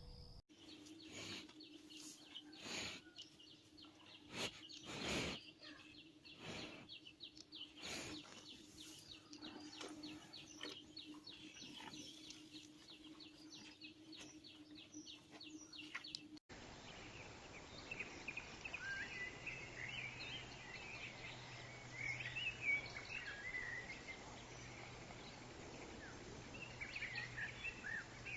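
Faint outdoor ambience in two parts. First come irregular sharp knocks and clicks over a steady low hum and a fast high chirring. Then, after an abrupt cut about halfway through, small birds chirp over a faint low hum.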